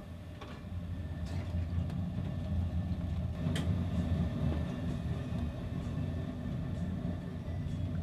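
Steady low rumble inside a cruise ship riding heavy storm seas, with a few faint clicks.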